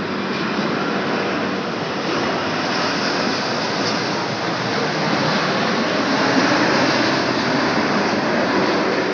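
Jet engine noise from an Air India Boeing 787's twin turbofans as the airliner passes low on its landing approach. It is a steady rushing noise that swells to its loudest about six to seven seconds in and eases slightly near the end.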